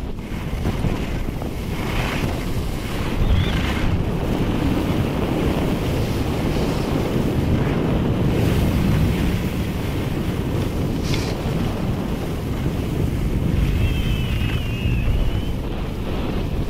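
Wind buffeting the microphone of a camera carried by a downhill skier: a steady rushing noise, heaviest in the low end.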